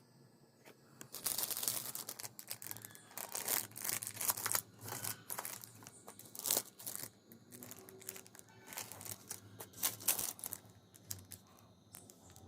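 Parcel packaging being torn open and crinkled by hand: irregular rasping tears and crackles, starting about a second in, with several loud rips along the way.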